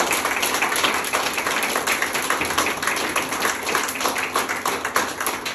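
Audience applauding: many people clapping densely, the clapping slowly thinning out toward the end.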